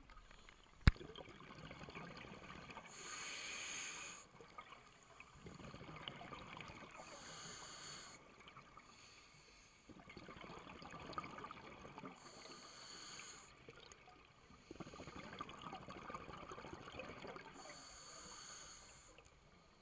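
Scuba regulator breathing underwater: a hiss about a second long, four times at intervals of four to five seconds, with the crackling bubble of exhaled air in between. A single sharp click about a second in.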